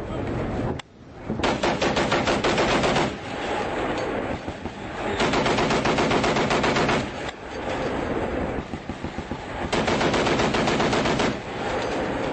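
Humvee-mounted .50-calibre machine gun firing three long bursts of about two seconds each, with scattered shorter shots between them.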